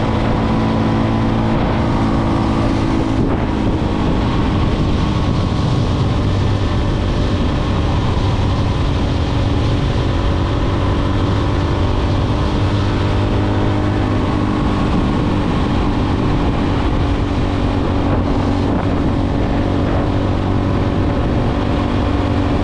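Motorcycle engine running at a steady cruising speed, under steady wind rush on the microphone.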